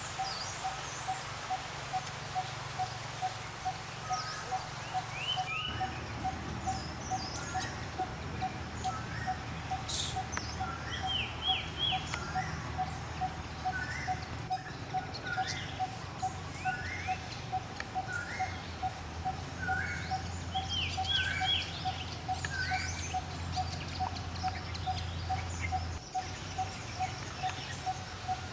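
Forest ambience of assorted bird chirps and short calls, over an evenly repeated call about twice a second and a low steady rumble.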